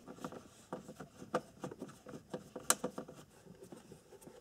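Hand screwdriver tightening the screws that hold a Nissan Maxima's instrument cluster in the dash: scattered small clicks and scrapes of metal on plastic, with a couple of sharper ticks.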